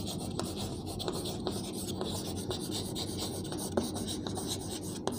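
Chalk writing on a chalkboard: faint scratchy strokes with scattered small sharp taps as the chalk meets the board.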